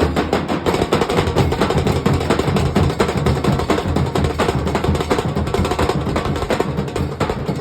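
Nasik dhol drums and tasha playing a fast, dense, driving rhythm together.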